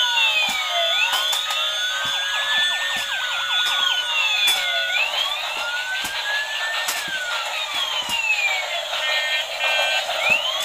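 Several battery-operated toy vehicles playing electronic siren sounds at once through tiny speakers: thin, tinny wails rising and falling and overlapping, with light clicks. A steady tone under the sirens stops about five seconds in.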